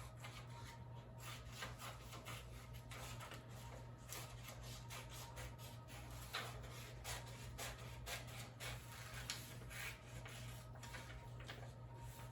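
Scissors cutting paper: a run of soft, irregular snips and paper rubbing, over a low steady hum.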